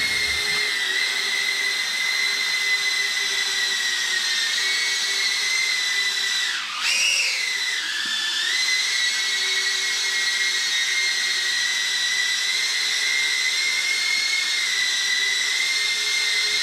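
Flywoo CineRace20 two-inch cinewhoop FPV drone flying indoors, its tiny motors and ducted propellers making a steady high-pitched whine. About seven seconds in the pitch dips sharply and then surges back up as the throttle changes, before settling again.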